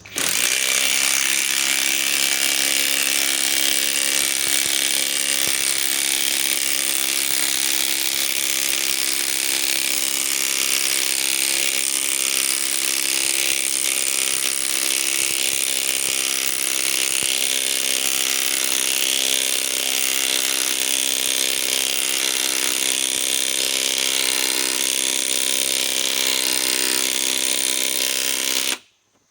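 Metabo SSW 18 LT 300BL cordless impact wrench hammering steadily for nearly half a minute while driving a 4¾-inch lag screw into a pre-drilled hole. It stops suddenly near the end.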